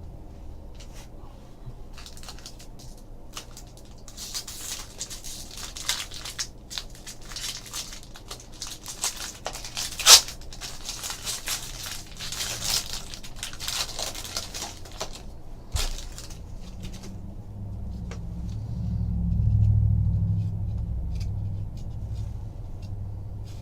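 A trading-card pack wrapper being torn open and crinkled by hand, with the cards handled, and a sharp snap about ten seconds in. A low rumble near the end.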